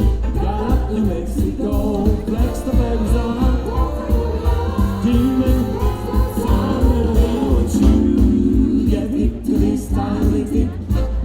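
Live music: a vocal quartet singing together over instrumental accompaniment with a strong bass.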